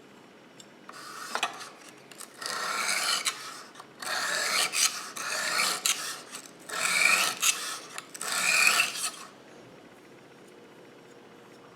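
Steel kitchen knife edge pushed along a coarse aluminium oxide sharpening stone in a series of about six gritty strokes, which stop about nine seconds in. The strokes raise a burr toward the tip of the blade.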